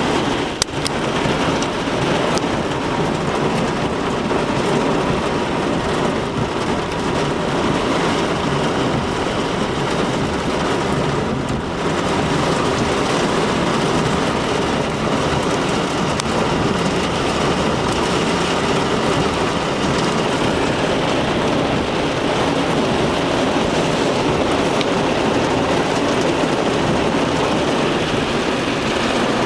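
Heavy thunderstorm downpour with wind: a steady wash of rain pouring down, with a few small drop ticks.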